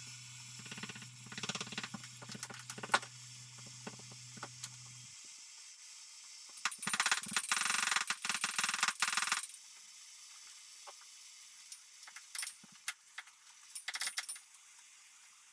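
Hand tools working on metal under a truck: scattered sharp clicks and clinks, with a loud dense rattling run of about three seconds in the middle. A low hum stops about five seconds in.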